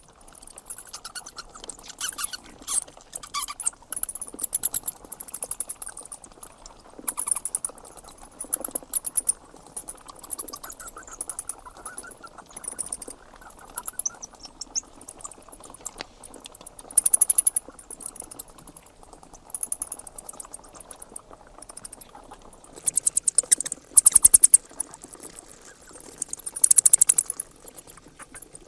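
Bats squeaking: rapid trains of shrill, very high-pitched chirps in bursts every second or two.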